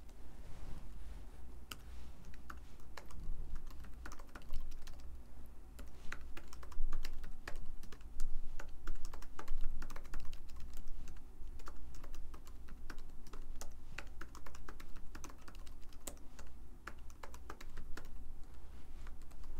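Typing on a computer keyboard: irregular runs of sharp key clicks, over a low steady hum.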